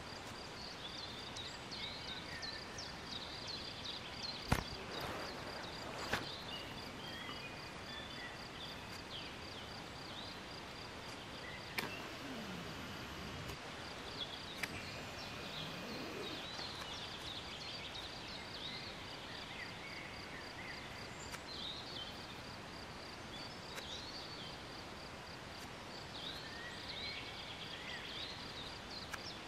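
Woodland birdsong: many short chirps and trills from several birds over a steady, fast, high-pitched pulsing note, with a few sharp single taps, the loudest about four and a half seconds in.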